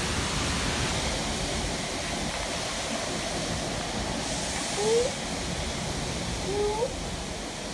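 Storm-force gusting wind rushing through trees, a steady wash of noise. A short rising squeak about five seconds in, and two more near the end, stand out over it.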